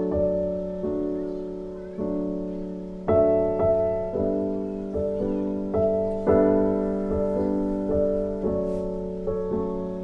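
Background piano music: a gentle piece of single notes and chords, each struck and left to fade before the next.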